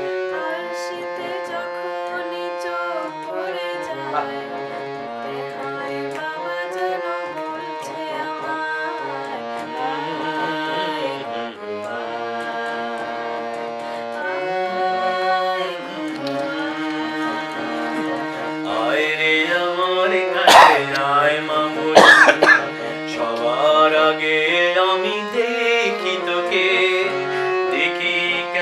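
A girl singing a Bengali song with a man joining in, over the sustained reedy notes of a harmonium. Two sharp, loud sounds break in about two-thirds of the way through.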